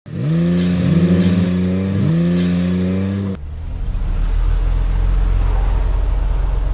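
An engine revved three times, each rev rising in pitch, then cut off abruptly. A steady low engine rumble follows.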